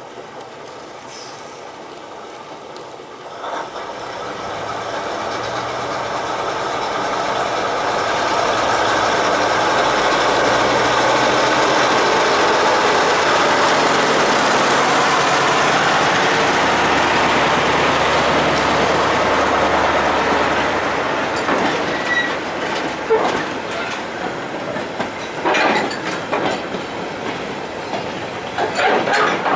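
Class 03 diesel shunter D2170 and its Gardner eight-cylinder engine hauling a freight train past. The engine swells in from a few seconds in and is loudest for about ten seconds as the locomotive goes by. Then the wagons roll past with clanks and clicks from their wheels on the rails.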